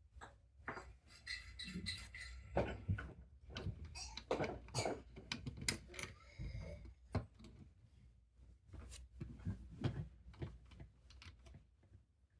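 Plastic Lego bricks clicking and rattling as they are handled and fitted together: a string of irregular small clicks.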